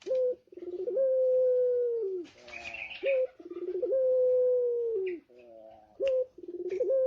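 Male puter pelung dove, a Barbary dove breed kept for its long coo, cooing three times about three seconds apart. Each call is a short note followed by a long held coo that drops in pitch at its end.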